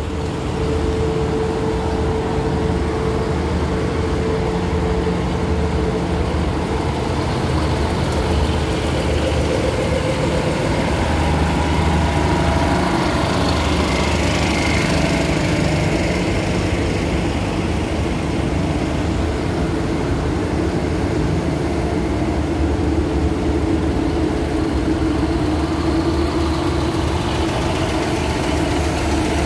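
Underfloor diesel engines of a stationary diesel railcar express train idling: a steady low hum with higher mechanical hiss that grows louder for a few seconds around the middle.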